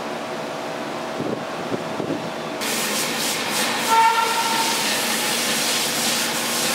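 A steady hum, then a loud, even hiss cuts in abruptly about two and a half seconds in. A brief two-note whistle-like tone sounds over the hiss about four seconds in.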